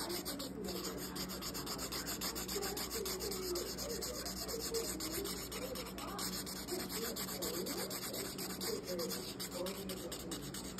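Broad chisel tip of a dual-tip art marker rubbed rapidly back and forth over paper, a steady scratchy rubbing of quick strokes.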